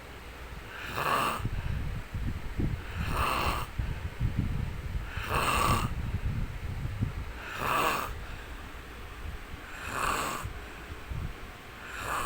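A sleeping man snoring in a steady rhythm. A low rumbling snore alternates with a breathy puff, one cycle about every two seconds.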